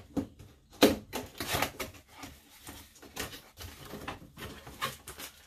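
A cardboard box being opened by hand: the top flap pulled up and back, with scraping, rustling and scattered knocks, the sharpest knock about a second in.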